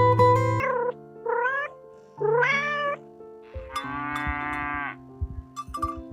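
Domestic cat meowing: three short meows that rise in pitch, then a longer, steadier one, over background acoustic music.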